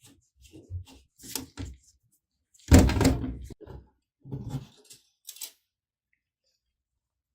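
Handling noises from working on a laptop: a run of short knocks and rustles, the loudest a heavy thunk about three seconds in and another clatter a second or so later.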